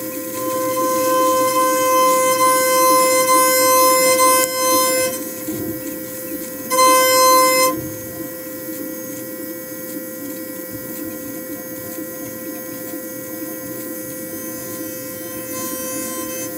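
A CNC milling machine's cutter machining a part under flood coolant. It gives a steady, high-pitched singing tone over the hiss of the coolant spray. The tone is loudest for the first five seconds, then drops, then swells again for about a second around seven seconds in.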